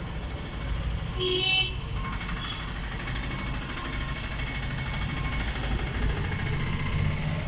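Steady low rumble of road traffic, with a brief high-pitched tone about a second in.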